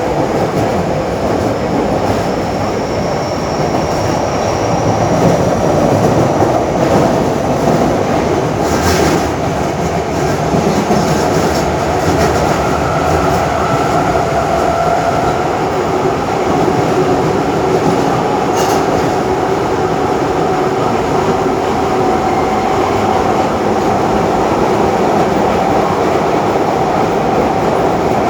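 Tanimachi Line subway train running, with steady rolling noise and clickety-clack from the track and a faint whine that slowly rises in pitch. A sharp click sounds twice, about a third and two-thirds of the way through.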